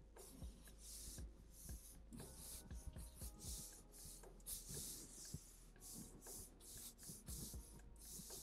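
Felt-tip marker drawing on paper: a quick run of faint, short scratchy strokes, about two a second.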